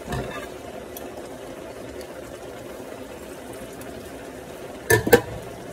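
A pot of instant noodles boiling, a steady bubbling hiss. Near the end come two sharp snips in quick succession: kitchen scissors cutting open a sauce packet.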